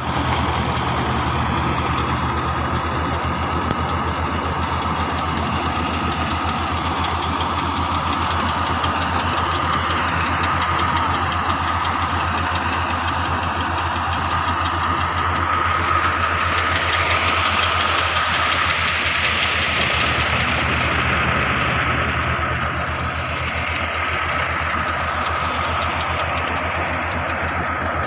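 Tractor-powered wheat thresher running steadily under load as wheat is threshed. The tractor's diesel engine gives a low, rapid throb beneath a steady high-pitched whine and the rushing noise of the machine.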